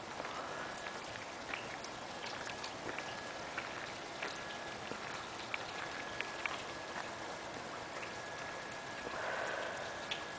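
Rain falling steadily, with scattered sharp ticks of single drops landing close by.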